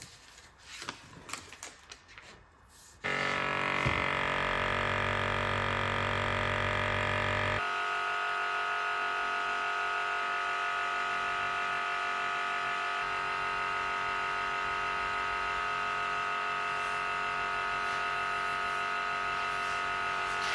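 Electric vacuum pump switched on about three seconds in, then running with a steady buzzing hum; its deep low hum drops out after about four more seconds while the higher whine carries on. A few light handling clicks come before it starts.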